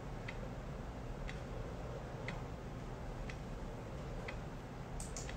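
A clock ticking faintly about once a second over low room hum, with a couple of sharper clicks near the end.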